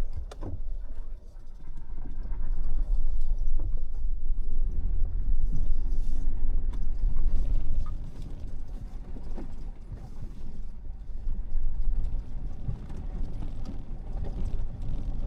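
A Tank 500 SUV driving slowly over a rough dirt track: a steady low rumble of tyres and drivetrain, with scattered knocks and creaks from the body and suspension.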